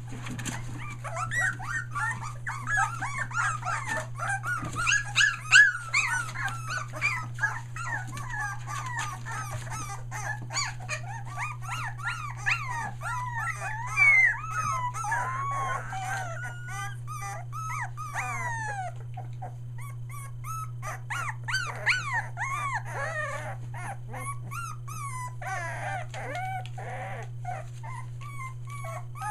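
A litter of three-week-old Australian Shepherd puppies crying and whimpering, many high-pitched cries overlapping at once. The crying thins out for a few seconds past the middle, then picks up again near the end, over a steady low hum.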